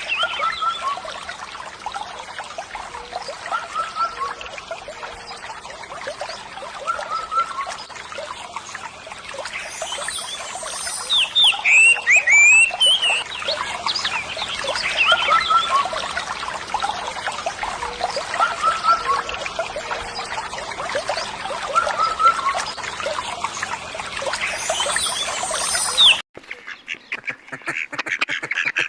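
Birds and other animals calling with many short chirps over a steady hiss like trickling water. Near the end it cuts off abruptly and a different recording of rapid, evenly repeated calls begins.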